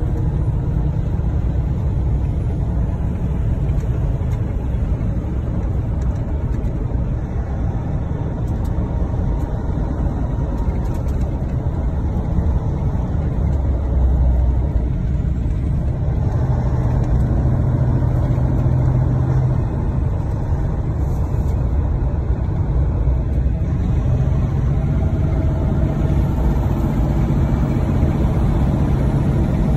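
Semi-truck cab interior while cruising on the highway: a steady, low rumble of the diesel engine and road noise. A steady engine hum comes through more clearly about halfway through and again in the last few seconds.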